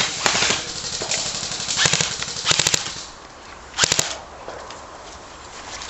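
Airsoft guns firing short rapid bursts of clattering shots in an exchange of fire. The bursts come in clusters over the first four seconds, then die down.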